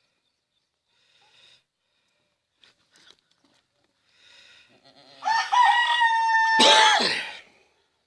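Rooster crowing once, loud, starting about five seconds in: a long call held on one pitch that drops away at the end. A few faint calls come before it.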